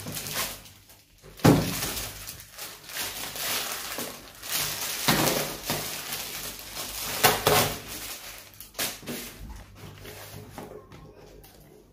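Plastic parcel wrapping being handled and cut open: irregular crinkling and tearing, with a few louder sharp crackles about 1.5, 5 and 7 seconds in.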